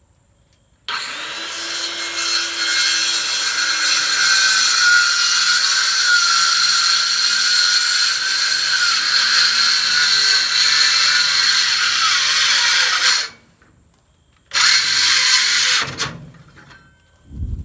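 Battery circular saw cutting through an old 2x4: the motor spins up about a second in and runs under load with a steady whine for about twelve seconds, then stops. It runs again briefly, for about a second and a half, and a dull thump comes right at the end.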